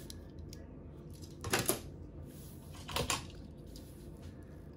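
Small die-cast metal toy cars clicking against each other and the table as they are handled, in two brief clusters of clicks, about a second and a half in and again about three seconds in.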